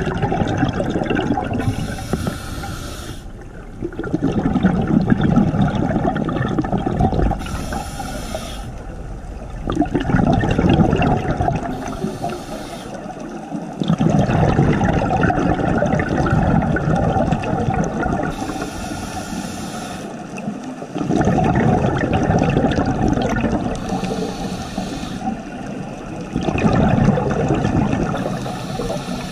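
Scuba diver breathing through a regulator underwater: a short hiss on each inhale, then a longer rush of exhaled bubbles, about six breaths in a slow, even cycle.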